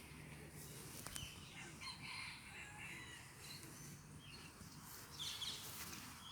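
Faint outdoor background between rooster crows: a low steady hum with a few faint high chirps, about two seconds in and again near the end.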